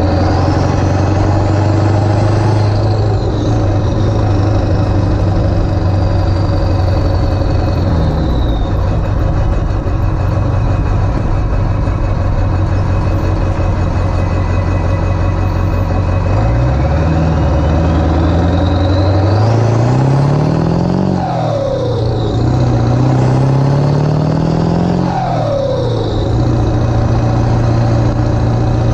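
Ford 7.3 Powerstroke V8 turbo-diesel, fitted with 160/30 injectors, driving. A high turbo whistle rises and then slowly fades in the first several seconds. About halfway through the engine pulls hard: its note climbs, drops, climbs again and drops before it settles back to a steady run.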